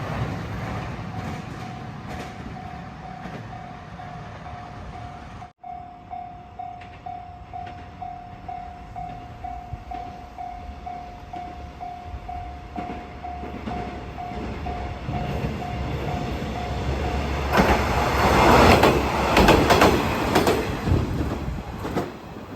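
A passing train fades away, then a level-crossing warning bell rings in even, repeated dings for about sixteen seconds. Near the end a two-car KiHa 120 diesel railcar runs over the crossing, loud, with wheels clacking over the rail joints.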